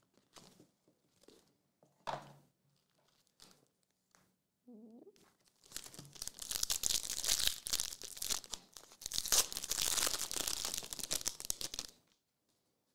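A trading card pack's foil wrapper being torn open and crinkled, a dense crackling from about six seconds in that stops sharply near the end, after a few soft rustles.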